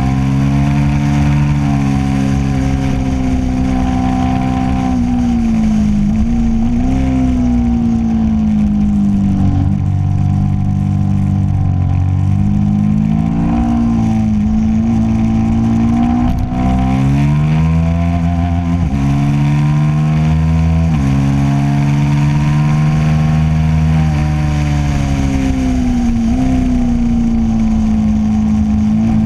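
Motorcycle engine heard from on the bike at speed on a race track, revving up through the gears with sharp drops in pitch at each upshift, then falling away and blipping down as it slows for corners, several times over.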